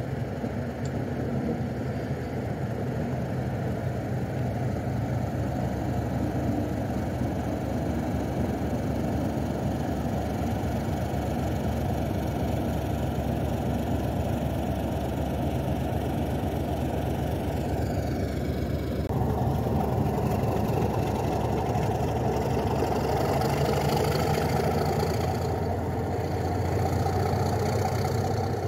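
British Rail mainline diesel locomotive engines running steadily as a Class 31 draws its train into the station. About 19 seconds in the sound changes abruptly and grows a little louder, with diesel locomotives idling and moving close by, including Class 25s.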